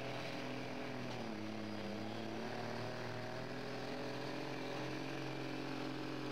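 Diesel Dodge Ram dually pickup engine under full load pulling a weight-transfer sled, a steady drone whose pitch sags about a second in as the sled takes hold, then slowly climbs as the truck drags it down the track.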